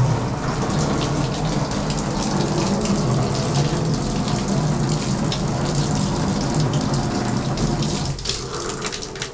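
Shower head spraying a steady stream of water onto a screen-printing screen in a bathtub, rinsing out the uncured emulsion; the water stops near the end.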